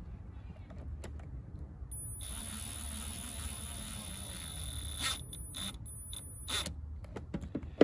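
Small cordless electric screwdriver running with a steady high whine, driving the screws of a wiring terminal block tight, then stopping and starting in short spurts. A sharp click near the end.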